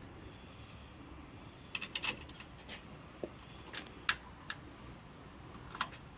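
Small sharp metallic clicks and clinks, about seven scattered over a few seconds, the loudest about four seconds in: lock hardware being handled while a mortise lock cylinder is fitted and seated in a door.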